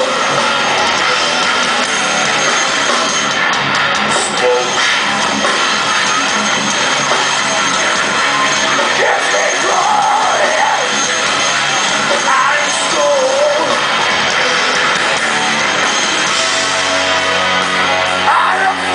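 Heavy metal band playing live at full volume: distorted electric guitars, bass and drum kit, heard from the crowd. A singer's voice comes through near the end.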